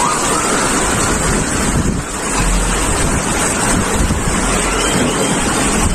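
Floodwater rushing as a steady, loud wash of noise, with wind buffeting the microphone.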